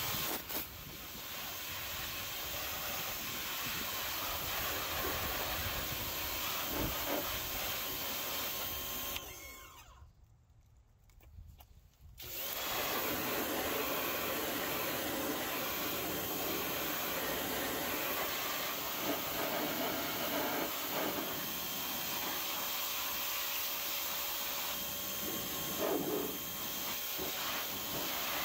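Pressure washer running, its wand spraying a jet of water against the car's front underside and engine cradle. The spraying stops for about two seconds near the middle, then starts again.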